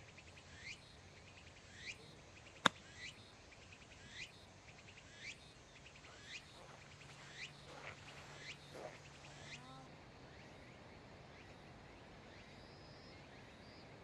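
A single sharp click about three seconds in: a wedge striking a golf ball on a short chip shot. Behind it, a bird calls faintly, a rising chirp repeated about once a second, stopping about ten seconds in.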